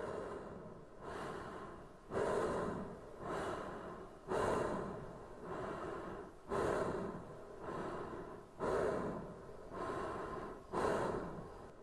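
A young man breathing hard from running, one breath about every second, every other breath louder than the one between.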